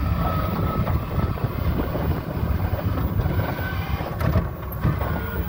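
Cab noise of an electric-converted Tata Magic on the move: a steady low rumble from tyres, road and body, with a faint whine and no engine running.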